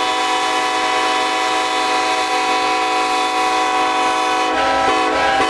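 Locomotive air horns sounding together in a loud, sustained chord. About four and a half seconds in, the blast turns choppy as the horns cut in and out in short toots.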